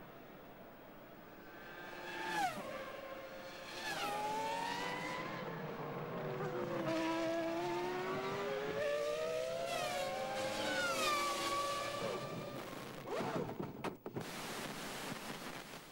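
Formula One V10 engines at high revs: pitch drops sharply as the cars brake and change down, then climbs steadily as they accelerate. Near the end comes a short burst of sharp bangs as the cars collide.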